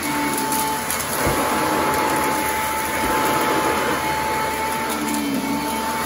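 Sanitaire commercial upright vacuum cleaner running steadily while pushed over carpet: a continuous rush of air with a thin, steady whine from the motor.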